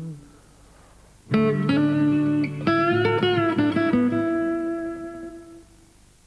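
A short guitar phrase, a few plucked notes coming in about a second and a half in and ringing out to fade away.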